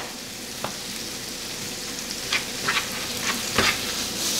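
Diced chicken sizzling in a nonstick skillet, with a few short scrapes of a plastic spoon stirring it, mostly in the second half.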